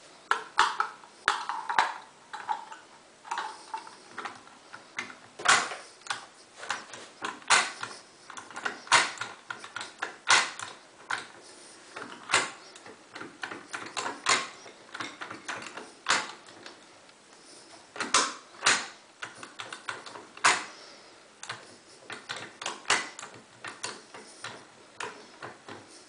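Irregular metallic clicks and taps of lock-picking tools working in an Auno 6+6 lever lock, one or two a second, a few ringing briefly near the start.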